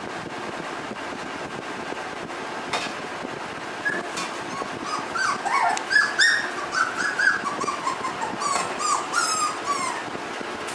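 Nova Scotia Duck Tolling Retriever puppies, about six weeks old, whimpering and yipping in many short, high calls that rise and fall, starting about four seconds in and stopping near the end. A single sharp knock comes a little before the calls.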